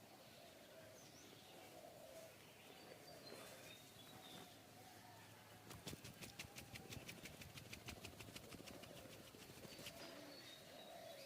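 Rapid rhythmic hand tapping of a massage, about seven quick strikes a second for roughly four seconds, starting a little after the middle. Faint bird chirps sound in the background.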